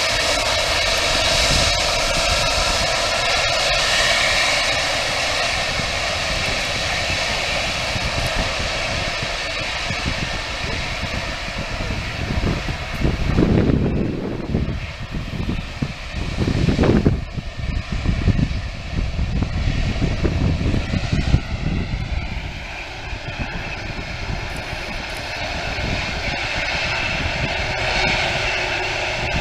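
Boeing 757's Rolls-Royce RB211 turbofans running at taxi power: a steady jet rumble with a held whine over it. About halfway through, a few heavy gusts of wind buffet the microphone.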